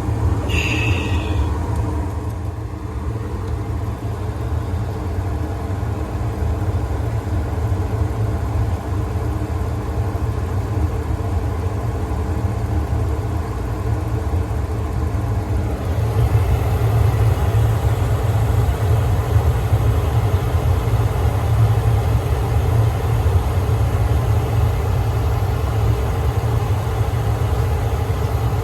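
Steady low mechanical drone of a running motor with a hum, growing louder about halfway through. A brief high squeak comes about a second in.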